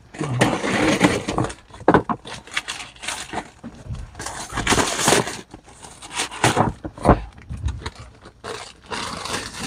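Plastic poly mailer bag crinkling and tearing as it is cut and pulled open by hand with scissors, in irregular bursts mixed with sharp clicks and light knocks on the desk.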